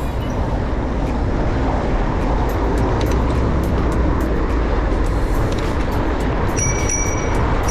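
Steady rush of wind and road traffic noise while riding a bicycle along city streets, heaviest in the low end. Near the end a thin, steady high tone sets in.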